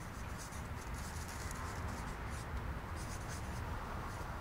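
Felt-tip marker writing on a paper flip-chart pad: a run of short, quick strokes as words are written out.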